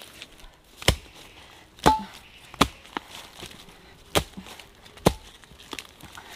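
A long-handled digging hoe chopping into soil and roots to dig out a bamboo shoot: five sharp strikes about a second apart, the second ringing briefly, with leaf litter rustling between.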